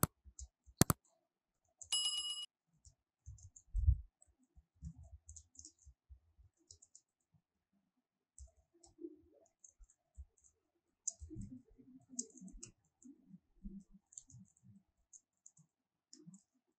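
Computer keyboard typing: scattered soft key taps and clicks. Two sharp clicks come near the start, and about two seconds in there is a short bell-like ding.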